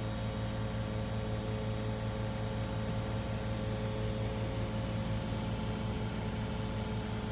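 Steady low mechanical hum with a few held tones over a faint even hiss, unchanging throughout.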